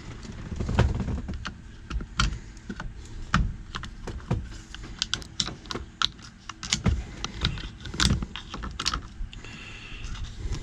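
Irregular clicking and light clattering of small metal parts and a hand tool being worked at a steering column's turn signal assembly, prying at a retaining clip, with a few louder knocks among the clicks.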